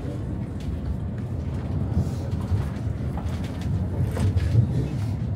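Tram running, heard from inside the passenger car: a steady low rumble of wheels on the rails, with a few short knocks and rattles about two and four seconds in.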